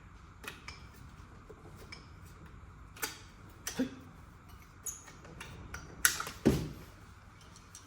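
Scattered clicks and taps of hand tools and a thin metal panel being handled and trimmed on a workbench, with two louder knocks about six seconds in.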